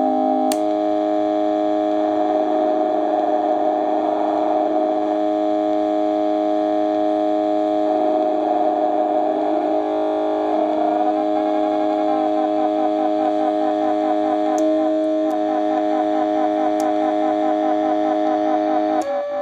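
DIY Weird Sound Generator analog synthesizer droning with steady buzzy electronic tones that shift pitch now and then. Twice the tone warbles for a few seconds, and from about twelve seconds in it turns into a fast, pulsing siren-like sound.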